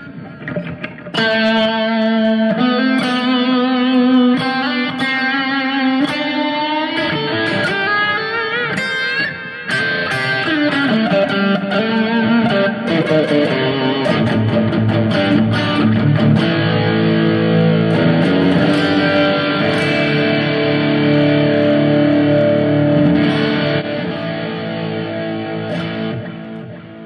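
Electric guitar played through a Sonicake Matribox II Pro multi-effects processor on a lead preset with delay: a melodic line with bent, sliding notes, then held lower notes that fade out near the end.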